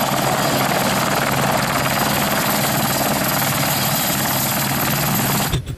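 A light turbine helicopter hovering just above the ground: steady rotor and engine noise with a thin high whine. It cuts off abruptly near the end.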